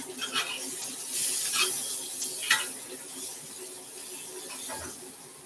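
Peppers and onions sautéing in a skillet: a steady frying hiss, loudest about one to two seconds in, over the steady hum of a range hood fan, with a few light clinks of utensils.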